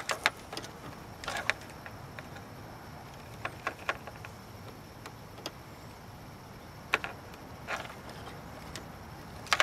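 Scattered light clicks and short scrapes of a pocket-knife blade on a thin wire's plastic insulation as the end is stripped by hand, over a faint steady hiss.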